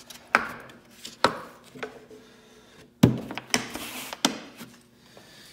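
Hard plastic tool case of a slide hammer being handled on a rubber workbench mat: a series of about six sharp knocks and clicks, the loudest a little after three seconds in.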